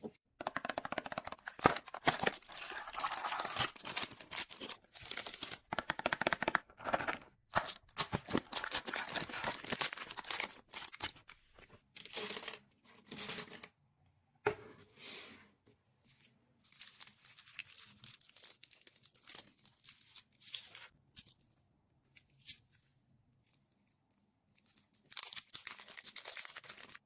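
Candy wrappers and packaging being torn open and crinkled: a long run of dense rustling and tearing, then broken handling noises with pauses, and a last burst of crinkling near the end.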